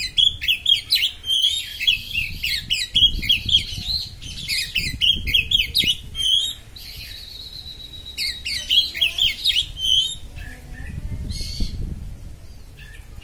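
Oriental magpie-robin singing its fast, sharp 'konslet' song: rapid runs of piercing chattering notes broken by a long, steady high whistle. After about ten seconds the song thins to a few scattered calls.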